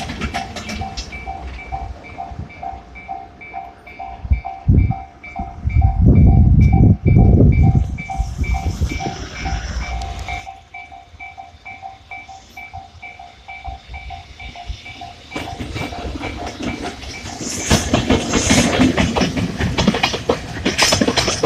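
Japanese level-crossing warning bell ringing its fast, even electronic ding, which stops about fifteen seconds in. Trains rumble past, and near the end a train passes loudly with the clatter of wheels over rail joints.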